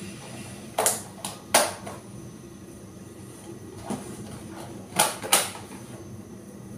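A spoon clinking against a metal cooking pot and bowl while stirring soup: about six short, sharp knocks, the loudest about a second and a half in and again twice around five seconds in, over a steady low hum.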